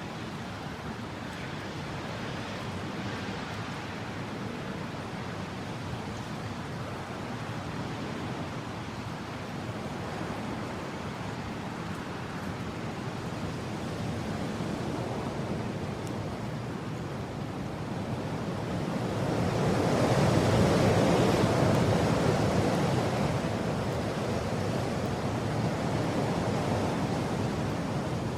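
Strong wind blowing, a steady rushing noise that swells into a louder gust about two-thirds of the way through, then eases.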